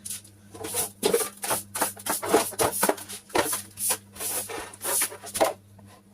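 Brush sweeping a bare floor: repeated short scrubbing strokes, about two to three a second, to clear the dust left under the old carpet.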